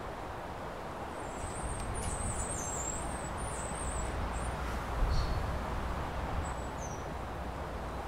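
Small birds chirping in high, thin calls for a few seconds, with a few more short chirps later, over a steady low rumble of background noise. A dull low thump about five seconds in.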